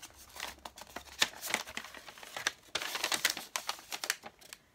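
A folded sheet of paper being opened out and handled, crinkling and rustling in a run of short crackles that die away near the end.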